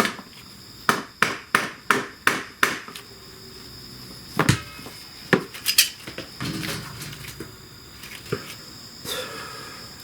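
Sharp tool knocks on the motorcycle's shifter hardware: six quick strikes about a third of a second apart, then three more a couple of seconds later.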